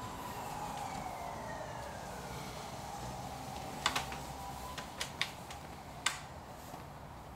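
A siren wails faintly, its pitch sliding down and fading over the first two seconds or so, over a low steady city hum. Several sharp clicks follow between about four and six seconds in.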